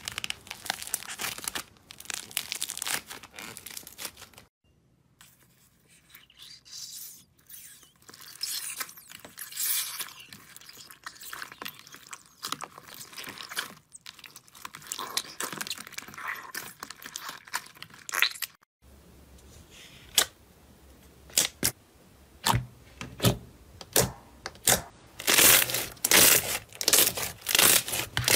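Slime worked by hand: a crackling, tearing sound as thick pink cloud slime is pulled apart, then softer squishing of clear blue slime packed with white foam cubes. In the last part, clear slime pressed flat under the fingers gives a run of sharp clicks and pops that come faster and louder toward the end.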